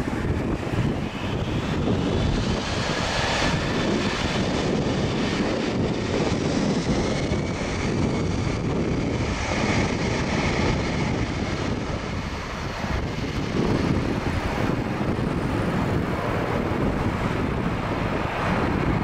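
Boeing C-17A Globemaster III's four turbofan engines running steadily with a faint high whine as the aircraft turns onto the runway for its takeoff.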